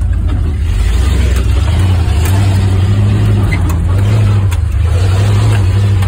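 1961 Ford F-250's engine running as the truck drives, heard from inside the cab, with its pitch rising a little about two seconds in. A few sharp knocks come through it.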